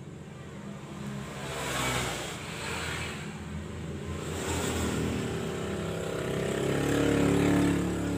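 A passing motor vehicle's engine, rising and falling, loudest near the end.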